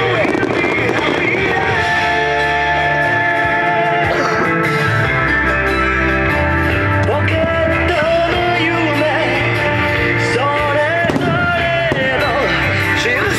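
Background music: held chords with a melody line gliding over them.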